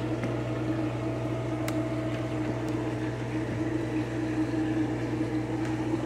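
Steady low mechanical hum of a kitchen motor or fan, with a single light click a little under two seconds in.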